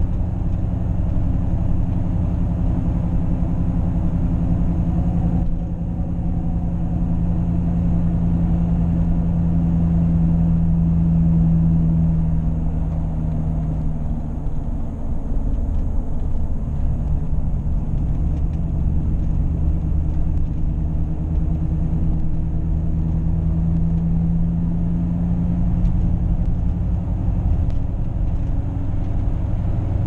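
Cabin sound of a 2011 Ford F-250 with the 6.7 L Powerstroke V8 turbodiesel cruising at about 50 mph: a steady engine and road drone that eases slightly about halfway through. No seat belt chime sounds, because the seat belt minder has been switched off.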